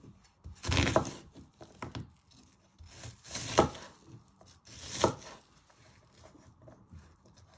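Large kitchen knife dicing an onion on a wooden chopping board: three short spells of cutting about two seconds apart, the blade coming down through the onion onto the board, with faint small clicks in between.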